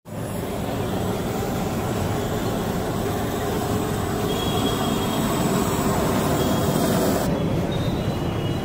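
Hot sizzler plate hissing and sizzling loudly and steadily under a cheese-topped fried-rice dish; it cuts off abruptly about seven seconds in, giving way to duller street noise.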